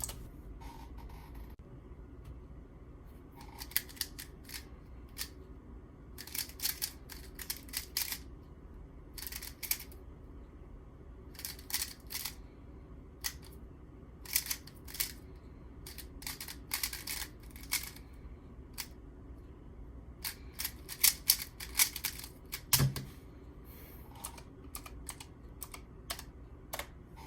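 Plastic 3x3 speedcube being turned fast, its layers clacking in quick irregular bursts of clicks with short pauses between them. A single dull thump comes about 23 seconds in.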